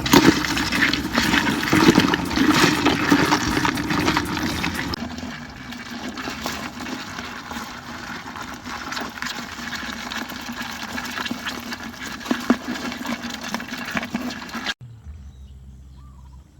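Water splashing and sloshing with many small clicks, loudest in the first few seconds. About three-quarters of the way through it cuts off abruptly to a quieter, steady low hum.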